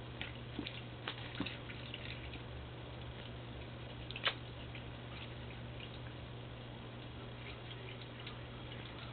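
A kitten playing with a small object, making faint scattered clicks and light taps, with one sharper click about four seconds in, over a steady low hum.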